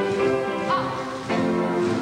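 Music, with several pitched notes held together and changing every so often.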